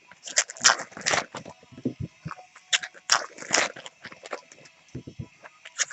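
Crinkling and tearing of foil trading-card pack wrappers and cards being handled, in irregular crackly clusters.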